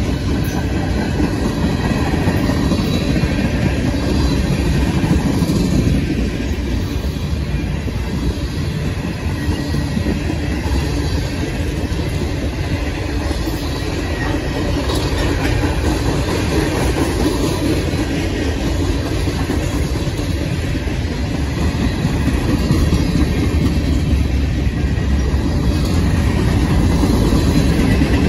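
CSX freight train's cars (tank cars, coil cars and covered hoppers) rolling past at speed: a steady, loud rumble of steel wheels on the rails.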